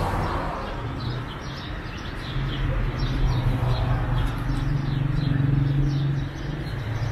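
Birds chirping over and over in quick short calls, against a street background. A low steady hum comes up about two seconds in, is loudest in the middle and drops away about six seconds in.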